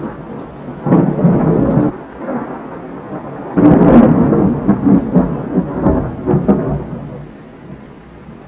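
Thunder from a nearby lightning strike: a short crack about a second in, then a louder crack and rumble from about three and a half seconds that lasts some three seconds and fades away near the end.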